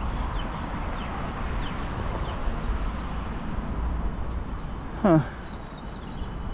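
Open-air roadside ambience: a steady low rumble under a soft hiss, with faint bird chirps. About five seconds in, a short, loud call drops steeply in pitch.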